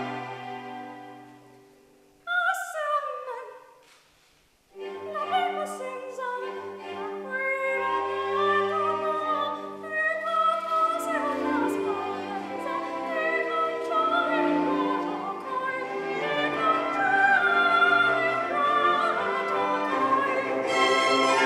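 Operatic soprano singing an aria with grand piano accompaniment. A held note fades away at the start, a short falling phrase follows about two seconds in, and after a brief pause the singing and accompaniment resume about five seconds in and carry on.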